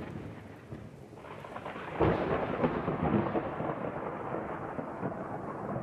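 Thunderstorm sound effect: a rolling thunder rumble over a rain-like hiss, with a louder thunderclap about two seconds in that rumbles on and slowly fades.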